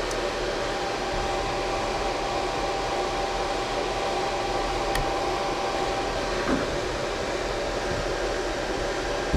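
Steady whirring fan noise with a faint steady tone in it, and one faint click about halfway through.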